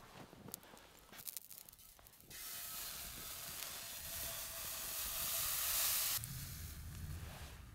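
Crêpe batter sizzling in a hot oiled steel frying pan over embers: a steady hiss that starts abruptly about two seconds in, grows a little louder, and stops suddenly about six seconds in. A few faint ticks come before it.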